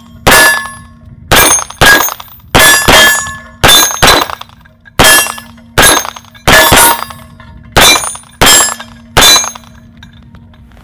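A 9mm semi-automatic pistol firing a string of about fourteen shots at an uneven pace, roughly one to two a second. Some shots are followed by the metallic ring of a steel gong target being hit.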